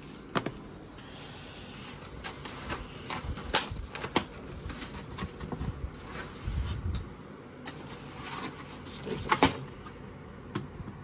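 Foam takeout clamshell boxes being opened and handled: scattered squeaky clicks and knocks, the sharpest about half a second in and again around nine seconds in.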